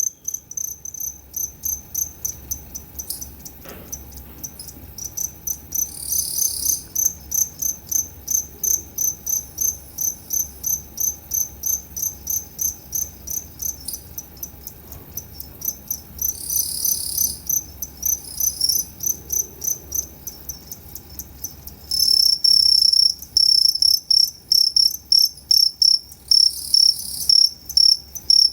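Two-spotted crickets (Gryllus bimaculatus) chirping: short, high-pitched chirps repeated two or three times a second, with a few longer buzzier bursts between them. About three-quarters of the way through, a louder, slightly lower-pitched cricket joins in.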